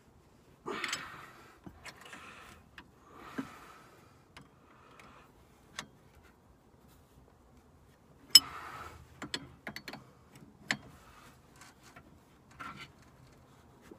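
Wrench working the nut on a Jeep Cherokee XJ's sway bar link: irregular metal clicks, clinks and short scrapes, with a louder clank and scrape about a second in and the loudest a little past halfway.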